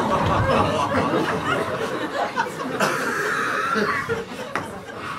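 Audience chuckling and laughing, dying down near the end.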